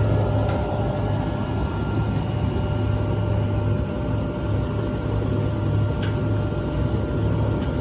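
Bruno SD1000-M20 brush sanding machine running: a steady mechanical hum with a few light clicks.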